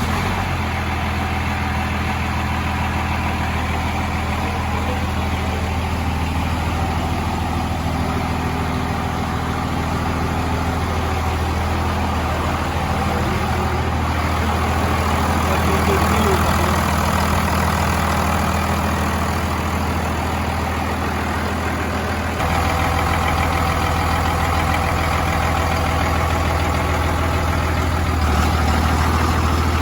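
5.9 Cummins diesel engine idling steadily just after starting, with a small shift in its tone about 22 seconds in.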